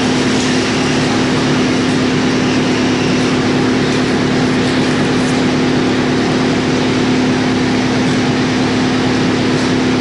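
Industrial drum wood chipper, driven by a 110 kW electric motor, running steadily. It gives a loud, constant machine noise with one strong steady hum through it and no separate knocks.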